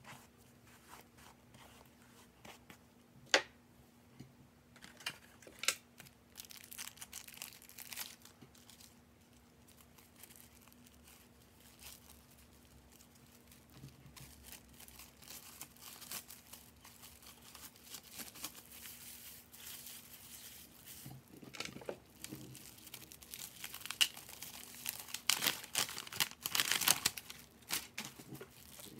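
Intermittent rustling and crinkling from handling hair-dye supplies, with a few sharp clicks, busiest near the end. A hair brush goes through hair near the start.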